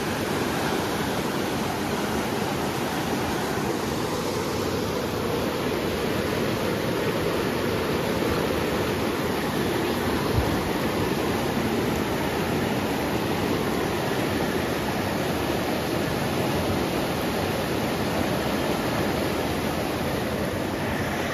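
Mountain river rapids rushing over boulders: a steady, unbroken wash of water noise. One brief knock about halfway through.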